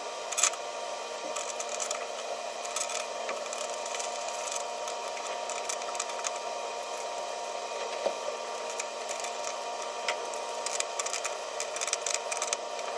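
Hand-tool work on a truck cab: rapid, irregular clicks and taps over a steady mechanical hum, with one sharper click about half a second in.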